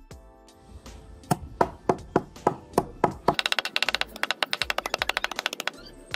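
Knife chopping banana peel against a wooden log: a few sharp chops about three a second, then a fast run of quick chops from about three seconds in until near the end, over background music.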